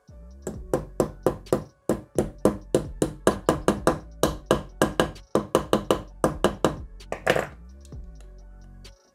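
Background music: a quick, even run of short ringing notes, about four a second, that stops shortly before the end.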